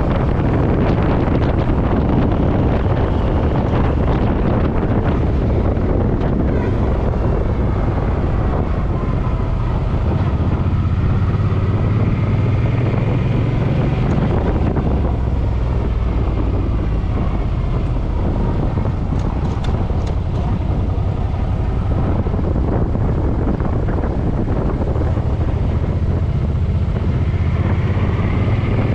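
Suzuki M50's V-twin motorcycle engine running steadily on the road, its pitch drifting up and down with the throttle, under heavy wind noise on the microphone.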